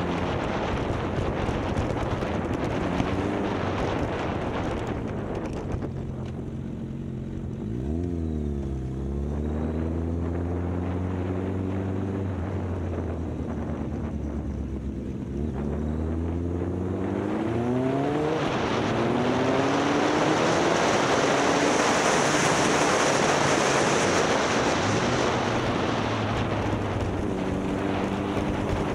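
Motorcycle engine on an off-road ride. The revs drop and pick up again about eight seconds in, hold steady for a while, then climb in stages as the bike accelerates. A loud rushing wind noise on the microphone builds over the second half.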